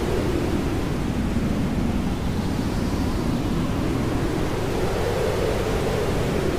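Continuous rushing white noise, deep and even, with a hollow band in the low end that slowly rises and falls over a few seconds.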